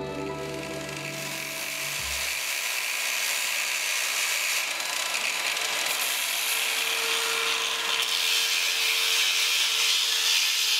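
Angle grinder cutting into a block of stone: a steady hiss of the disc on stone, growing a little louder, with a faint motor whine in the second half. Soft music fades out in the first two seconds.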